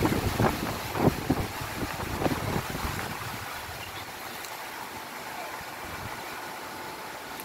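Strong sandstorm wind rushing through tree branches and buffeting the microphone. Low gusty thumps come through the first few seconds, then it eases to a steadier rush.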